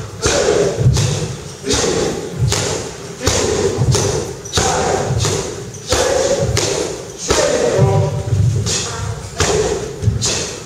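Punches and kicks landing on heavy punching bags and pads, a steady run of dull thuds about one to two a second, echoing in a large hall.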